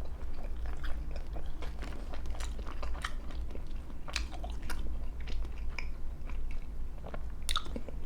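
Close-up chewing of a bite of thin-crust BBQ chicken pizza: irregular soft crunches and wet mouth clicks.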